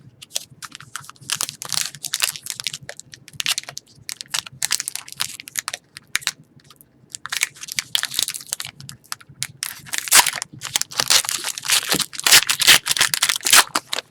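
Wrapper of a trading-card pack being torn open and crinkled, with cards shuffled in the hands, in irregular bursts of crackling that grow busier in the second half.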